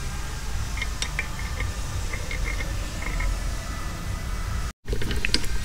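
Light clinks of small metal parts and tools being handled at a workbench over a steady low hum. The sound cuts out for an instant near the end, then sharper clicks follow.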